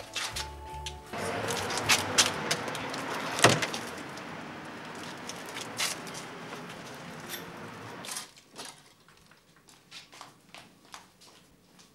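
Clanking footsteps on a metal fire escape over a steady hiss of street noise, with sharp knocks. About eight seconds in it drops to quiet, with scattered small knocks and clicks.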